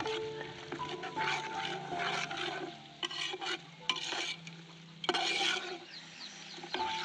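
Slotted metal spatula stirring and scraping grated coconut and tomato masala as it sautés in a large aluminium pot, in irregular strokes about once a second.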